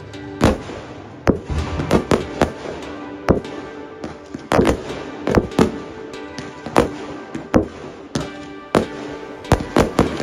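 Fireworks display: shells bursting in an irregular run of sharp bangs, one or two a second, with music playing underneath.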